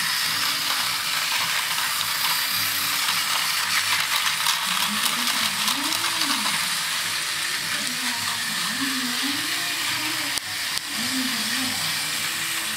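Battery-powered Tomy toy trains running on plastic track: a steady whirring hiss from the small motors and wheels, with light clicks as they run over the track.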